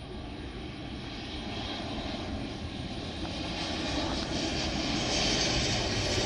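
Airliner approaching to land, its engine noise a steady rushing drone that grows louder as it comes closer.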